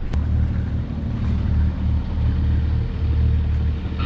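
Sailing yacht's inboard engine running slowly with a steady low drone, pushing the boat gently through a narrow harbour entrance. A short click comes just after the start.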